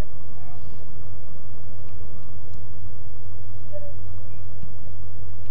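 Steady low drone of a car's engine and road noise, heard from inside the moving car.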